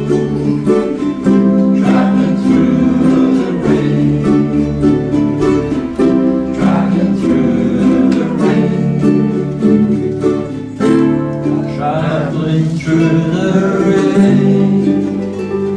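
Several ukuleles strummed together in a steady rhythm, with voices singing along.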